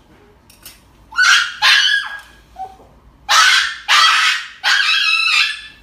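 Small dog screaming: a run of loud, high-pitched yelps, one after another from about a second in, while it is held and given an injection.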